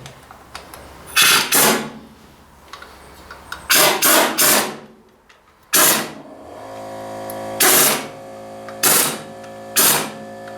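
Impact wrench run in short bursts, about nine trigger pulls in clusters, hammering the crankshaft pulley bolts tight on a Ford 800 tractor engine. A steady hum starts about six and a half seconds in and keeps going.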